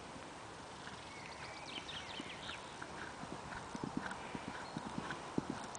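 Hoofbeats of a horse cantering on a sand arena: dull thuds that grow louder and closer together as the horse approaches.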